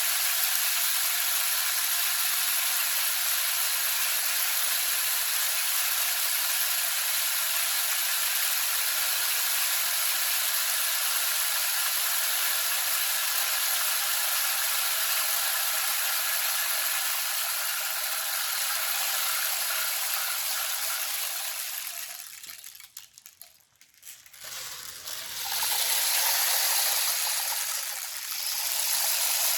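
Rainstick: a steady trickling hiss of pebbles running down the tube. It dies away about 22 seconds in as the fill runs out, then starts again a few seconds later when the stick is tipped back over.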